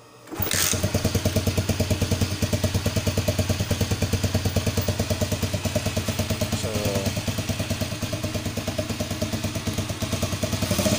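Motorcycle engine starting up about a quarter second in and settling straight into a steady, evenly pulsing idle. It is running with no battery fitted.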